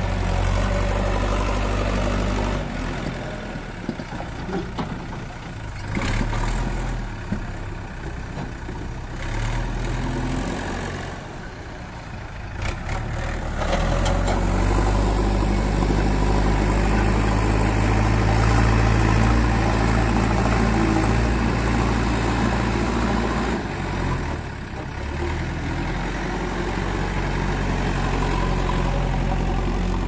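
JCB 3DX backhoe loader's diesel engine running and revving under load as the front bucket digs into and lifts sand. The engine pitch rises and falls with the work, and it runs louder and steadier through the second half. A few short knocks or clatters come in the first half.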